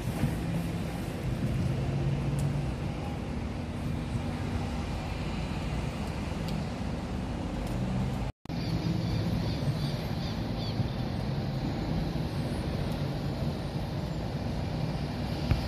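Steady road-traffic noise from the streets below: a low rumble of car engines and tyres. There is a brief dropout about eight seconds in, and a row of faint high chirps just after it.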